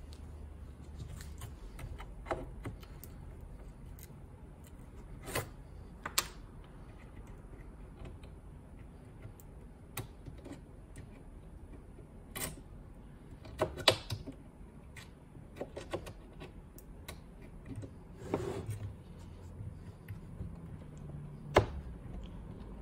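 Needle-nose pliers clicking and scraping as they grip and pull thin metal fasteners out of a broken particleboard drawer side. The sharp metallic clicks come at irregular intervals, a few louder ones among them, over a low steady hum.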